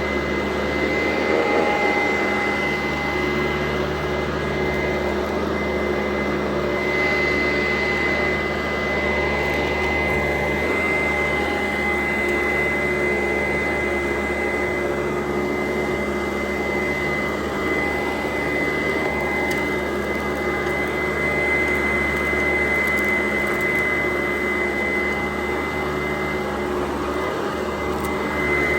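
Sanitaire SC899 upright vacuum cleaner running steadily, its motor giving a steady high whine over the rush of air.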